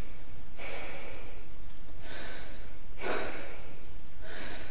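Audible breathing: about four breaths in and out, each under a second long, demonstrating belly and chest breathing, over a steady low hum.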